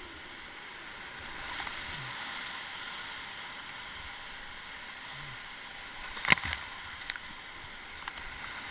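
Whitewater rapids rushing steadily around a kayak. A sharp knock comes about two-thirds of the way through, with a couple of lighter knocks after it.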